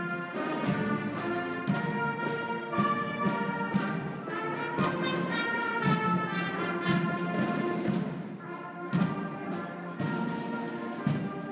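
Air cadet marching band playing as it marches: brass instruments, including a sousaphone, sound sustained chords over regular drum beats from a bass drum and snares.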